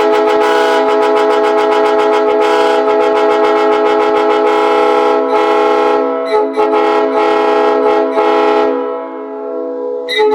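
Locomotive air horns mounted on a vehicle sounding a chord of several notes, held steady for about six seconds. The chord then breaks into a string of short blasts that fade away, and fresh short blasts start again at the very end.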